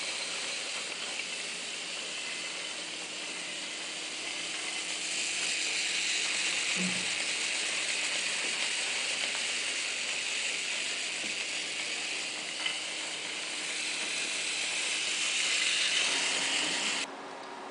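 Many small wheeled swarm robots driving about at once, their little gear motors making a steady, high-pitched whirring hiss. The hiss drops away suddenly near the end.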